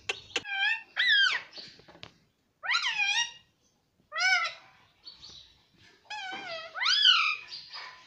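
Indian ringneck parrot calling: about four bursts of short, rising-and-falling calls with brief pauses between them.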